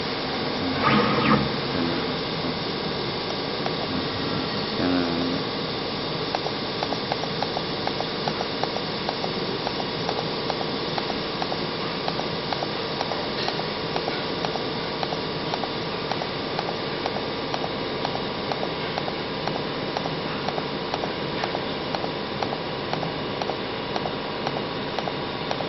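Steady motor hum with hiss, and from about six seconds in a regular light ticking that repeats a few times a second.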